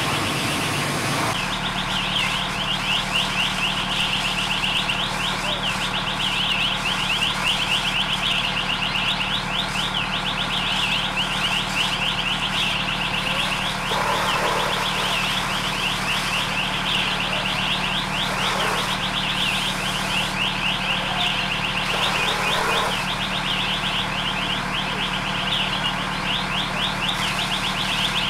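A high-pitched electronic alarm warbling rapidly and continuously, starting about a second in, over the steady drone of a fire engine's motor running.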